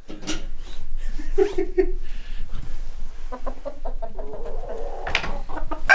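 Flock of chickens and roosters clucking, with a quick run of short clucks from about three seconds in.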